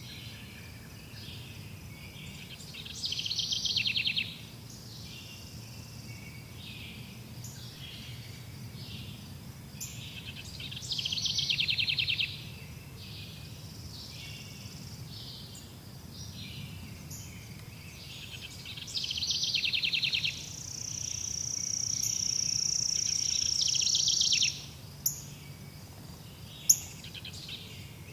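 Outdoor nature ambience of chirping birds and insects over a low steady rumble. Louder trills come about every eight seconds, and a long steady high buzz swells for a few seconds before two sharp clicks near the end.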